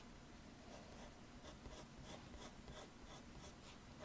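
Graphite pencil scratching faintly on drawing paper in a run of short sketching strokes, roughly two to three a second.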